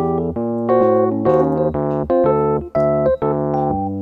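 Background music: an electric piano melody over a low bass line, its notes changing a few times a second.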